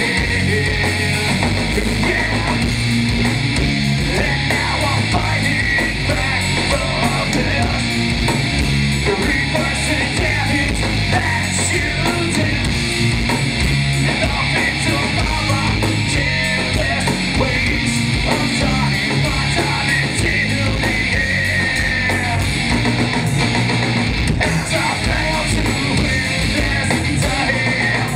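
Live rock band playing loudly and steadily: electric guitar, bass guitar and a drum kit with cymbals.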